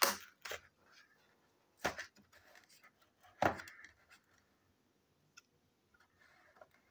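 Scissors snipping and cutting into the taped seam of a cardboard box: a few sharp snips spaced a second or more apart, the loudest about two and three and a half seconds in, then fainter clicks.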